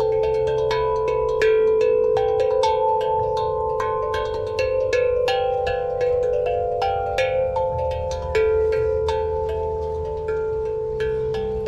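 Steel tongue drum (glucophone) played by hand: a slow melody of single struck notes, several a second, each ringing on and overlapping the next.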